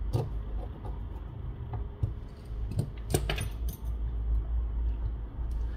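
A series of small sharp clicks and light taps as fingers press down the internal shield and charging-coil cover of an opened smartphone. The loudest cluster comes about three seconds in, over a low steady rumble.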